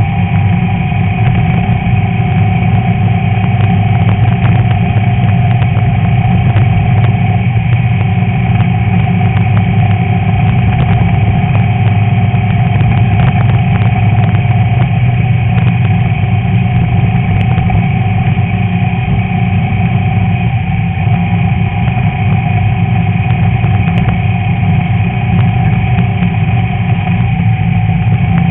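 A Class 11 VW Beetle's air-cooled flat-four engine running steadily under way off-road, with scattered clicks and knocks over it.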